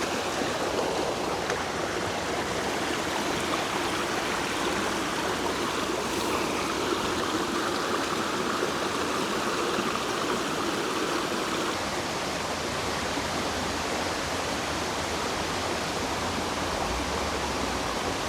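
Creek water rushing and burbling over rocks, a steady, even flow.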